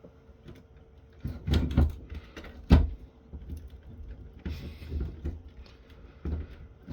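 Knocks, clunks and clicks of the opened UPS's plastic case and internal parts being handled. The loudest knock comes about two and a half seconds in. A faint steady hum runs underneath.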